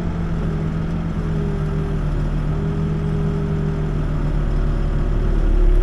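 Backhoe's diesel engine running steadily, heard from the operator's seat, getting a little louder near the end.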